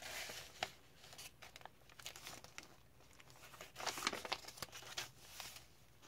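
Faint rustling and crinkling of paper as a paper tag is stuffed back into a pocket of a handmade paper junk journal, with a second stretch of rustling about four seconds in as a page is turned.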